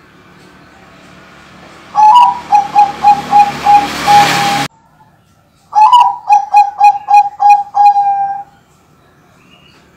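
Bangkok-line zebra dove (perkutut) cooing its rhythmic song: two phrases of quick, evenly spaced notes, each opening on a slightly higher note and ending on a longer held one. A hiss runs under the first phrase and cuts off suddenly as it ends.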